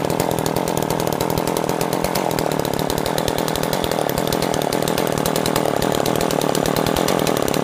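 Ice Master gas-powered ice auger's small two-stroke engine running steadily at an even speed.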